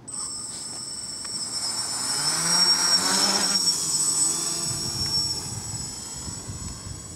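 Small quadcopter's brushless motors and propellers running at takeoff. The sound swells to its loudest about three seconds in as the quad lifts off close by, then fades as it climbs away, over a steady high whine.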